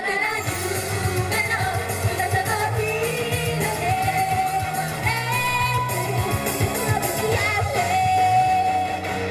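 Upbeat rock-style J-pop song with several young women singing in unison over a recorded backing track with a steady drum beat, played through a PA.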